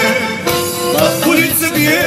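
Music: a Serbian folk-pop song playing, here with held instrumental notes and little or no singing.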